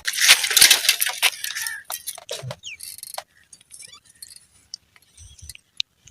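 A loud burst of rustling and sharp clicks for the first second and a half or so, then scattered clicks and a short falling chirp about three seconds in.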